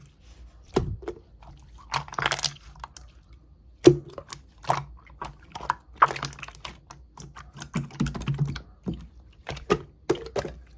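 Clear slime being squished and poked by hand, giving irregular runs of sharp, wet clicks and pops.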